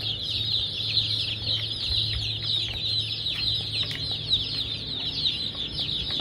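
A brood of baby chicks peeping nonstop, with many short, high, falling cheeps overlapping one another.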